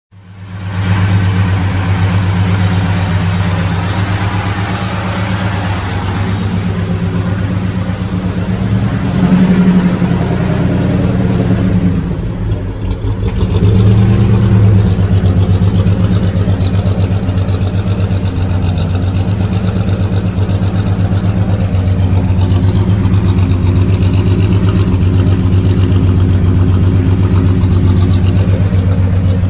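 Turbocharged GM 3.1-litre 60-degree V6 in a 1993 Chevy C1500 pickup, running at a steady idle with two brief swells partway through. It is heard first at the open engine bay and later at the tailpipe.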